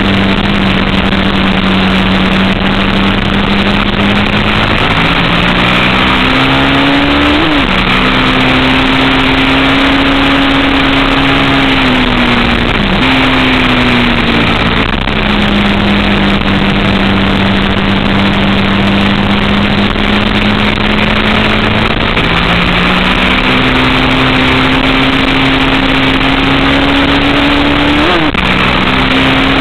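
Onboard sound of a faired track motorcycle at speed: its engine note holds steady and climbs, with three quick jumps in pitch at gear changes, under a heavy rush of wind.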